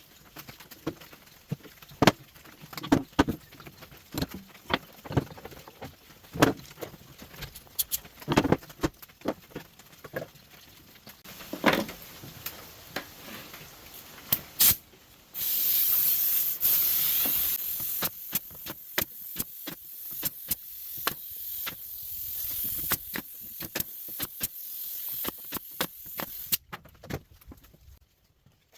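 Workshop knocks and clicks from handling tools and wood, then a loud, steady hiss of rushing air that starts abruptly about halfway and cuts off near the end.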